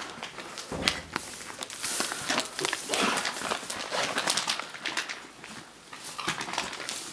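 Rustling and rubbing in straw and cloth as a newborn goat kid is wiped clean, with a goat calling now and then.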